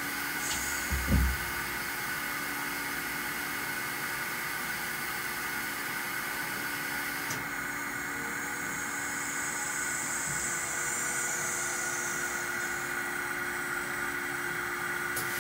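1997 Studer S40 CNC cylindrical grinder under power, giving a steady hum with several fixed tones while its wheelhead swivels on the B axis. There is a single low thud about a second in. Around the middle a hiss comes in for several seconds and a further tone joins.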